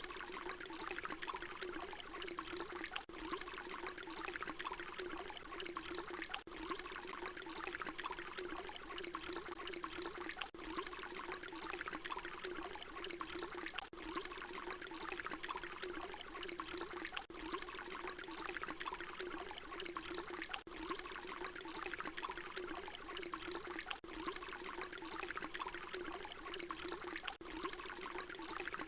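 Water pouring in a steady stream, with a brief dip about every three and a half seconds where the short recording loops.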